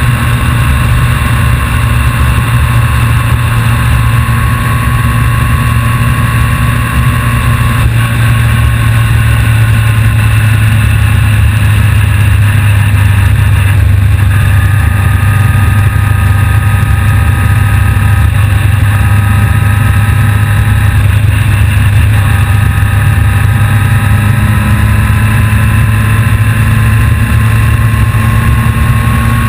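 A vehicle's engine running steadily while under way, with road noise. A higher whine over the low drone shifts pitch a couple of times.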